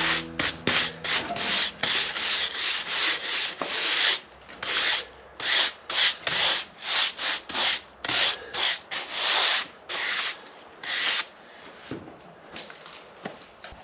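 Repeated sweeping strokes across the face of a freshly sawn silver maple slab, brushing the sawdust off, about two a second. The strokes turn softer and sparser near the end.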